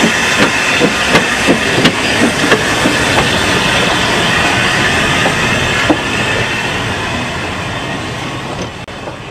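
Narrow-gauge Fairlie steam locomotive and coaches rolling past, wheels clicking over the rail joints about three times a second for the first few seconds, then running steadily and fading as the train pulls away near the end.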